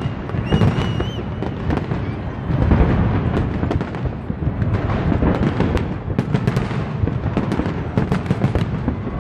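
Large aerial fireworks display: a dense, continuous run of shell bursts, booms and crackles, with a brief high wavering whistle about half a second in.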